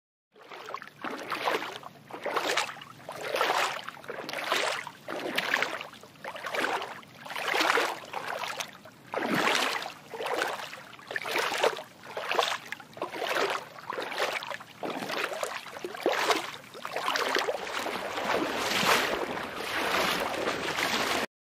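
Water splashing and swishing in a steady rhythm, about once a second.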